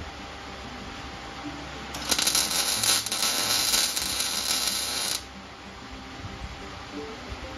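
A wire-feed welder's arc crackling through one plug weld of about three seconds, starting about two seconds in and cutting off sharply, as a hole in the new sheet-steel fender apron is filled to fuse it to the panel behind.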